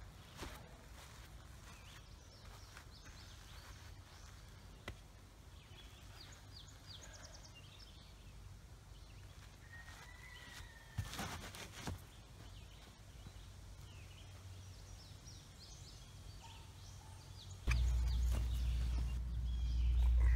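Quiet outdoor woodland background with birds chirping in the trees. A few sharp knocks come about eleven seconds in. A strong low rumble on the microphone starts near the end.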